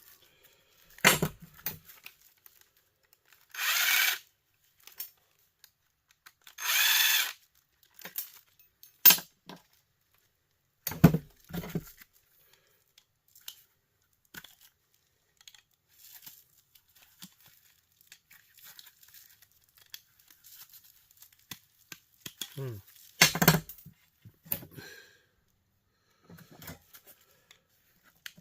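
Scattered knocks and clinks of heater parts being handled and set down while it is taken apart for scrap. Two short noisy bursts of about a second each come about four and seven seconds in.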